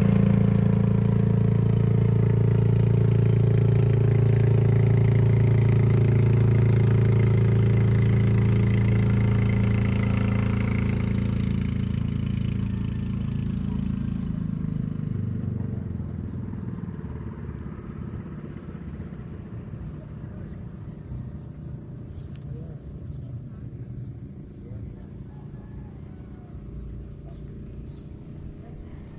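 Small boat engine of a motorized outrigger boat running steadily at an even pitch, then fading away over about ten seconds until only a faint low sound remains.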